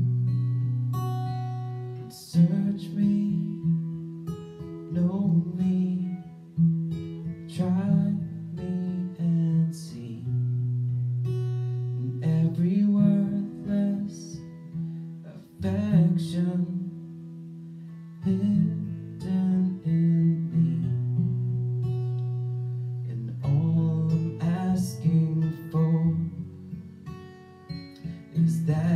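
Acoustic guitar playing a slow worship-song accompaniment: strummed chords left to ring, changing every couple of seconds.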